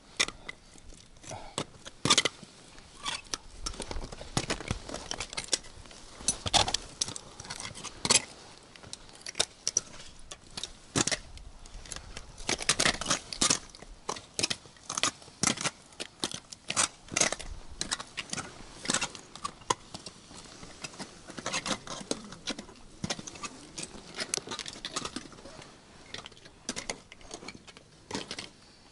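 Metal climbing hardware, carabiners and gear on fixed ropes, clinking and jangling in irregular clusters of sharp clicks, busiest around the middle.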